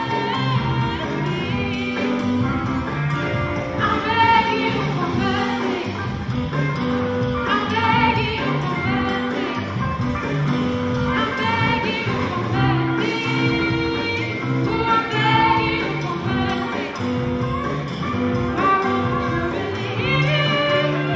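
A young woman singing into a handheld microphone over an instrumental accompaniment, with long held notes.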